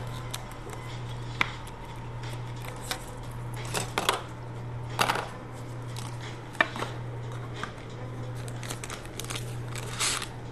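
Intermittent rustling and light clicks of trading cards, plastic card sleeves and foil card packs being handled by hands in plastic gloves, over a steady low hum.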